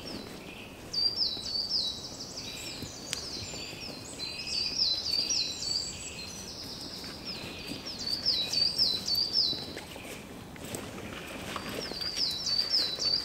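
Small songbirds singing: runs of short, high notes, each sliding downward, repeated quickly, thickest in the first half and again near the end. Faint rustling underneath.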